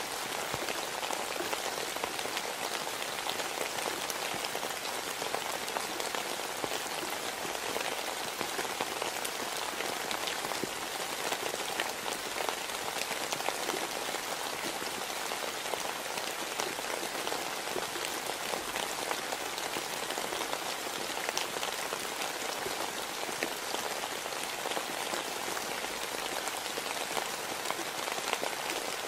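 Steady rain falling, an even hiss with many fine drop ticks scattered through it.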